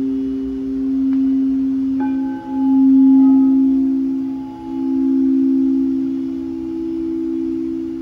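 Frosted quartz crystal singing bowls, their rims worked with mallets, sounding two steady overlapping tones, one low and one a little higher, that swell and fade. A bowl is struck about two seconds in, adding a brighter ringing tone above them.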